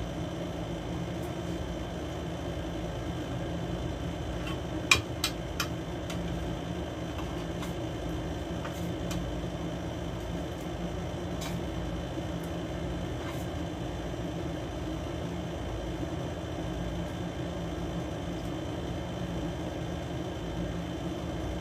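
A steady machine hum in a small room. A few sharp clinks of spoons on dinner plates come about five seconds in, with fainter ones scattered later.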